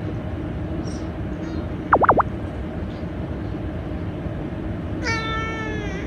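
A short, loud chirp of three quick up-and-down sweeps about two seconds in, then near the end a cat's meow about a second long, its pitch falling slightly.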